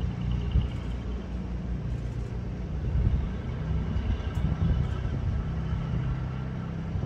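Learjet 60XR's Pratt & Whitney Canada PW305A turbofans running: a low, uneven rumble with a faint high whine that comes and goes.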